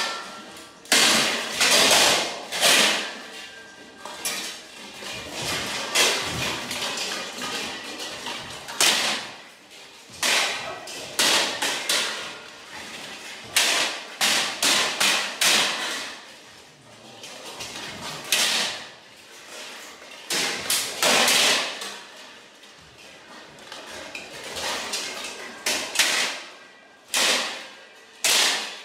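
Swords clanging against round metal shields in kalaripayattu sword-and-shield sparring: quick, irregular clusters of metallic strikes, each clash ringing briefly, with short pauses between exchanges.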